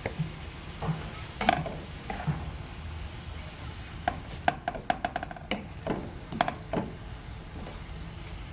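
Ground meat with grated carrot and zucchini sizzling in a frying pan as a spatula stirs and scrapes through it, with a run of quick scrapes and taps about halfway through. The mixture is being sautéed briefly so the zucchini's water cooks off.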